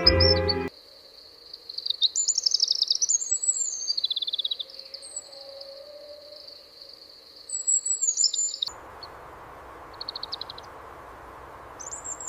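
Small bird chirping in quick runs of high notes over a steady high tone. About nine seconds in, a steady hiss of outdoor background comes in, with a few more short chirps near the end.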